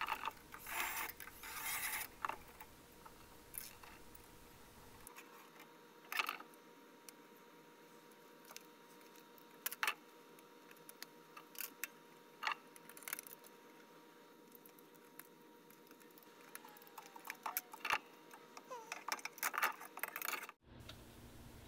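Scattered light metallic clicks and clatter from a galvanized sheet-metal dust hood and locking pliers being handled and the rivets worked into their holes. There is a busier cluster in the first few seconds and again near the end.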